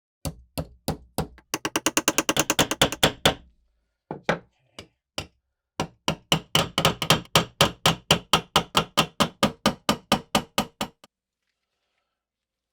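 Hammer tapping in a long series of sharp strikes. The strikes quicken into a rapid run over the first few seconds, break off, come back sparsely, then settle into a steady beat of about three a second before stopping.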